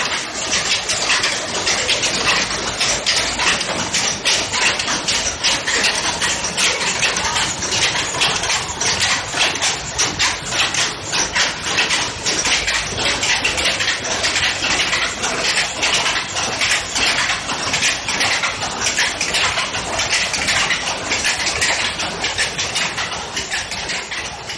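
Weaving loom clattering in a fast, steady rhythm of dense mechanical clicks, beginning to fade out at the very end.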